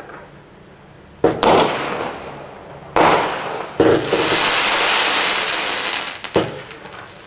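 Single-ignition multi-effect firework cake firing a series of shots. Sudden launches come about a second in, near three seconds and again near four, then a steady hiss lasting about two seconds, and one more sharp shot near six and a half seconds.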